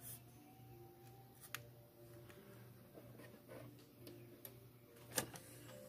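A few small, sharp clicks of metal tweezers against the plastic and metal parts of an N scale locomotive chassis, the loudest about five seconds in, over faint soft background music.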